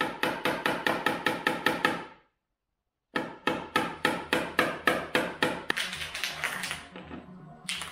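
Rapid hammer blows on metal, about four to five a second, each one ringing. The hammering stops for under a second about 2 s in, then resumes and tails off into softer, less regular knocks near the end.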